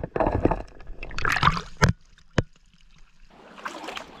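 Dip net sweeping through a shallow, stony stream after a crawfish: water sloshing and churning, with a few sharp knocks in the first two and a half seconds. It goes quiet briefly, then the water noise builds again near the end.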